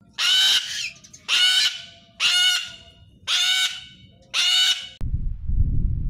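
Sulphur-crested cockatoo screeching: five harsh screeches about a second apart. A low rumbling noise follows in the last second.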